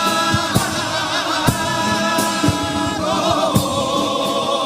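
A carnival comparsa chorus singing a pasodoble in several-part harmony, holding long notes, over low drum beats.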